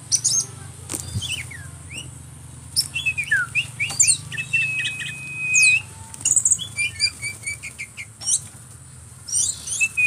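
Tame mynas and an oriental magpie-robin chirping and calling close by in quick, varied notes and glides, with one long held whistle about five seconds in, and wings fluttering now and then.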